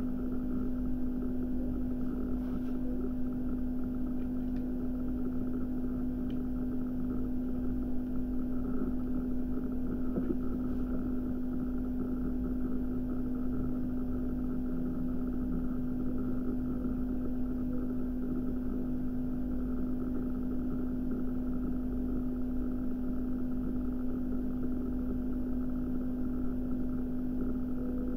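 A steady low hum over a constant rumbling noise, unchanging throughout.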